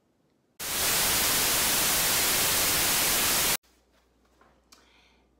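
A burst of loud white-noise static lasting about three seconds, cutting in and out abruptly, followed by faint room tone with a small click.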